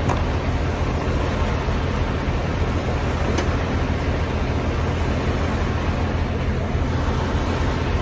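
Steady drone of diesel engines up close: a semi tractor idling and a refrigerated trailer's reefer unit running, with a few faint clicks.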